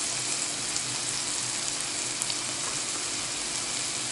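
Sucuk sausage frying in a pan: a steady sizzling hiss with a few faint pops.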